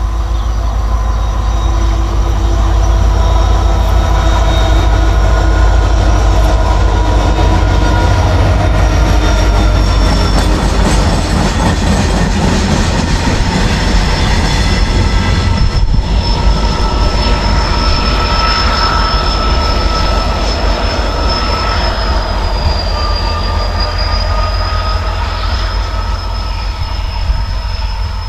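Express passenger train rolling past at speed with a loud steady rumble and a high-pitched squeal of wheels on the rails.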